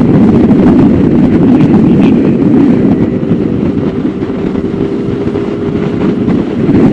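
Motorcycle engine running under way, mixed with steady wind rush on the microphone while riding. It eases off somewhat for a few seconds in the middle and comes back up near the end.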